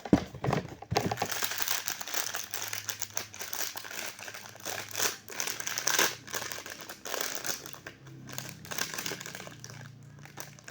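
Blind-box packaging crinkling and rustling in the hands as it is opened to get at the figure's small accessories. There are two sharper knocks near the start.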